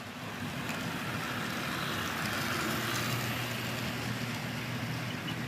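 Two model trains passing each other on a double-track bridge: a steady rolling rattle of the cars' wheels on the rails with a low motor hum underneath, loudest about halfway through.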